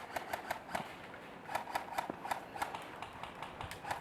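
Footsteps: irregular sharp crunches and clicks, a few a second, as players move over the ground.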